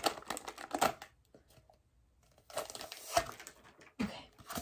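Clear plastic wrap crinkling and crackling as it is peeled off a rolled bundle of paper dust jackets, in short spells: through about the first second, again around the middle, and briefly near the end.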